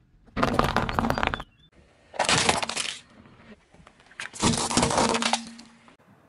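A car tyre rolling over and crushing small brittle objects: three separate bursts of crunching and cracking, each about a second long.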